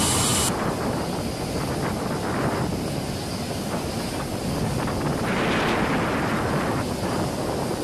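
Wind buffeting the microphone on an aircraft carrier's open flight deck, over a steady rumble of deck noise. A loud high hiss cuts off about half a second in.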